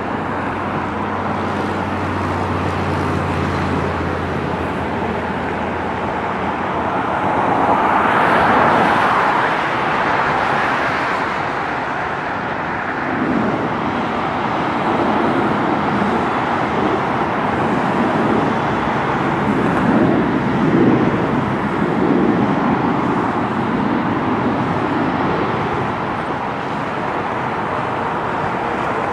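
Boeing 777-300ER's two GE90 turbofans running at taxi power: a steady jet rumble and hiss, swelling for a few seconds about eight seconds in.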